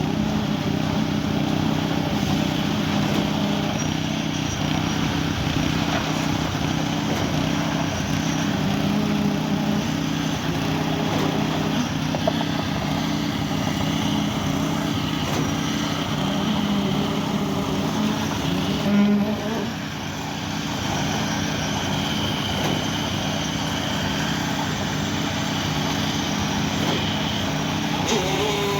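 Heavy diesel engine of a truck-mounted concrete pump running steadily at a constant speed.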